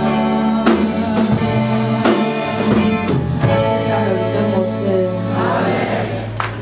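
A woman singing a gospel song solo into a microphone over instrumental accompaniment with drums, closing on a long held note with vibrato that fades out just before the end.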